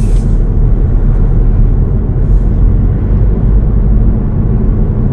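A car driving along a paved road: a steady, loud, low rumble of road, tyre and engine noise.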